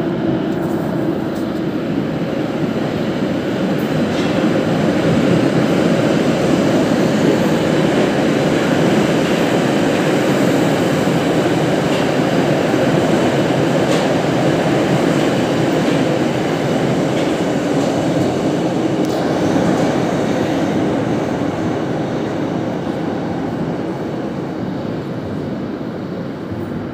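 Sinergiya-2 metro train running through a station without stopping: a steady rumble of wheels on rails that builds over the first few seconds, holds, then fades slowly as the train leaves, with a few sharp clicks along the way.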